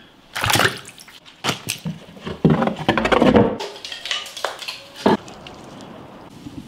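Kitchen clatter: a run of separate knocks and clanks of pots and wood being handled, with a busier stretch in the middle and one sharp knock about five seconds in.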